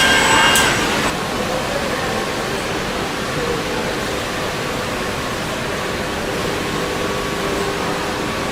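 Steady hissing hum of factory machinery on a car production line, with faint steady tones underneath. A brief cluster of higher tones sounds in the first second.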